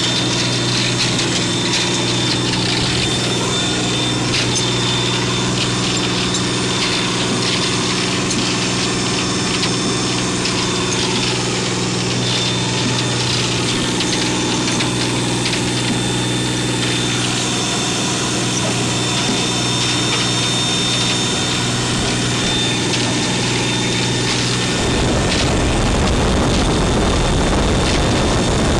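A fishing boat's engine running steadily under way, a low hum over the rushing hiss of the water along the hull. Near the end the hum fades and a deeper rumbling noise takes over.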